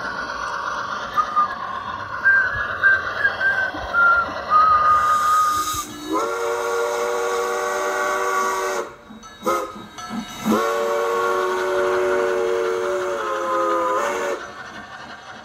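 Steam locomotive whistle sounding two long blasts of a several-note chord, the first starting about six seconds in and the second stopping shortly before the end, over a steady hiss. Before the whistle, short high chirping tones play over the hiss.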